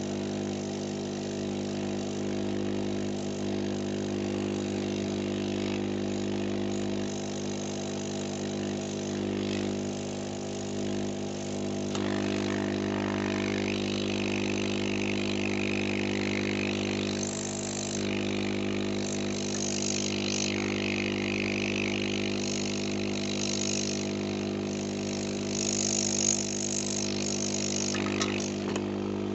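Homemade hot-air rework station running: its blower motor gives a steady hum. About halfway through, an airy hiss of blown hot air comes in and swells as the nozzle works the board. A few light clicks come near the end.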